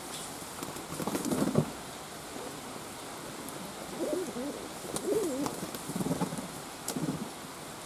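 Domestic pigeon cooing in a run of low, wavering coos, loudest about a second in, over a steady hiss of falling rain.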